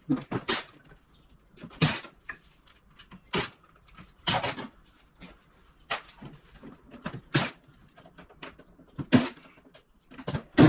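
Irregular metal clanks and knocks, about one every second, from an air-conditioning unit being dismantled for scrap.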